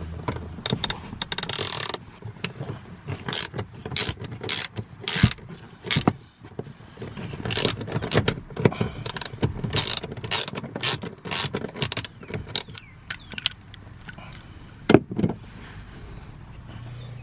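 Hand ratchet clicking in quick, uneven strokes with metal clanks as seat-mounting bolts are backed out. The clicking thins out after about thirteen seconds, and there is one sharp knock near the end.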